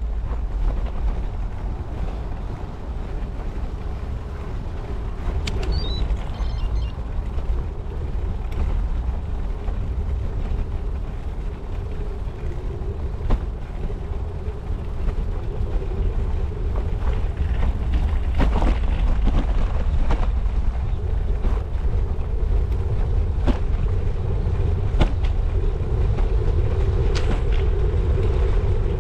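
Bicycle rolling along a tarmac road: heavy wind rumble on the microphone and tyre noise, with a steady hum and sharp clicks and knocks from the bike going over bumps, more often in the second half.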